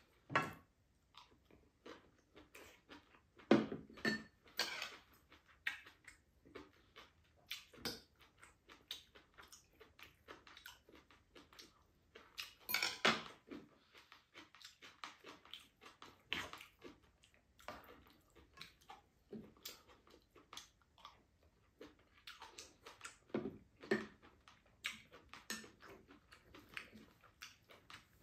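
A spoon clinking and scraping against a frying pan and small bowls during a meal, in irregular knocks with a few louder ones, mixed with chewing.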